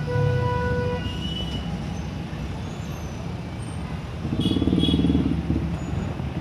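Street traffic rumbling steadily, with a brief steady tone in the first second and a louder vehicle passing about four and a half seconds in.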